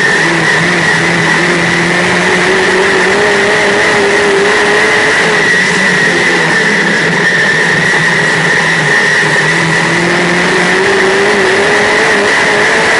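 Dirt modified race car's V8 engine at racing speed, heard from inside the cockpit. The engine pitch climbs for the first five seconds or so, falls back around the middle, then climbs again near the end, with a steady high whine over it.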